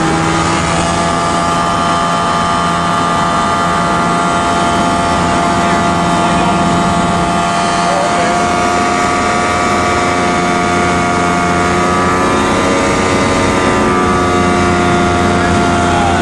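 Small airplane's engine and propeller droning steadily, heard from inside the cabin, with a slight shift in pitch about twelve seconds in.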